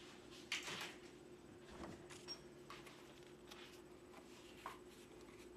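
Quiet kitchen room tone with a steady faint hum, a short rustle about half a second in, and a few faint clicks of things being handled.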